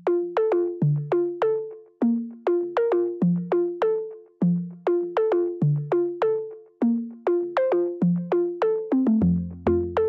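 Background music: a synthesizer melody of plucked, quickly fading notes, two or three a second, with a low bass and beat joining about nine seconds in.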